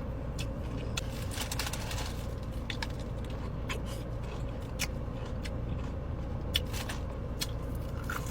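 Close-up chewing and crunching of crispy fried chicken wings, a string of short sharp crunches and mouth clicks scattered through, over a steady low hum inside a car.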